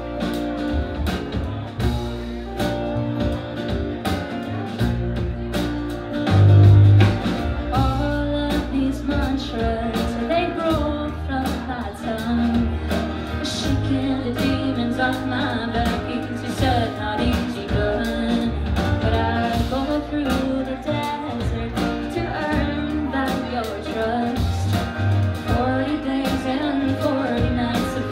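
A live band playing a song: acoustic guitars strummed, a Nord Stage keyboard and drums, with women singing the melody. A loud low note swells out about seven seconds in.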